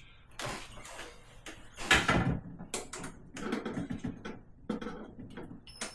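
Irregular knocks, clicks and short scrapes of plastic parts being handled and fitted inside a fridge's freezer compartment, the loudest knock about two seconds in.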